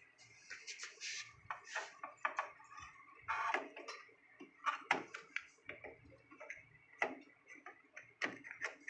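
Irregular clicks and light knocks of small parts and hand tools being handled while a photocopier is taken apart and reassembled, a few louder knocks among them.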